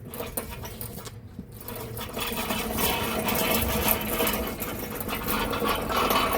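Casters of a loaded engine crane rolling across a concrete shop floor, a continuous rapid rattle and clatter that grows louder about two seconds in, under the weight of a heavy engine.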